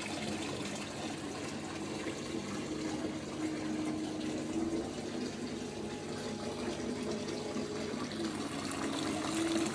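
Steady running water, an even rush, with faint low held tones coming and going over it.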